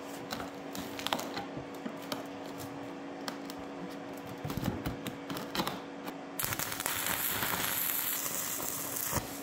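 A few light clicks of metal being handled and positioned, then, about six seconds in, a Migatronic welder's arc crackles and sizzles steadily for about three seconds and cuts off. This is a tack weld fixing a steel patch onto a rusted tractor fender.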